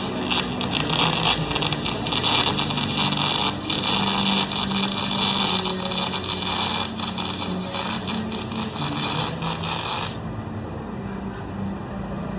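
Aluminum welding arc hissing and crackling steadily, cutting off about ten seconds in. The welding machine's low hum runs on underneath.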